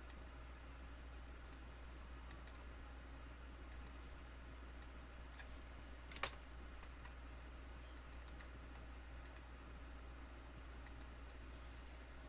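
Faint, irregular clicking of a computer keyboard and mouse, some clicks in quick pairs or small clusters, with one louder click about six seconds in, over a low steady hum.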